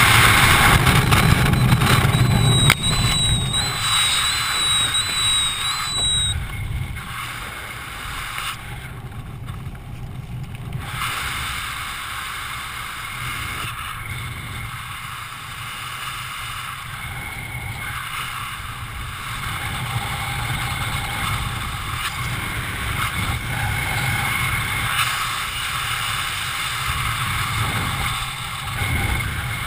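Loud wind rushing over a helmet-mounted camera, dropping off suddenly about three seconds in as the parachute opens. A softer, fluctuating wind noise follows under the open canopy, with a thin wavering high tone for a few seconds just after the opening.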